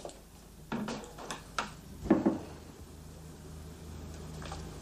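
A few sharp knocks and clicks, the loudest and deepest about two seconds in, followed by a faint low steady hum.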